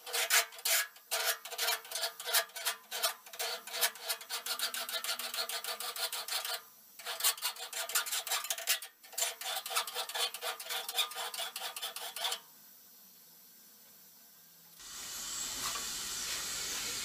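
A bastard file rasping across the steel edge of a Tramontina machete in quick repeated strokes, taking off metal to raise an edge. The strokes break briefly about two-fifths of the way through and stop about three-quarters through. A steady hiss comes in near the end.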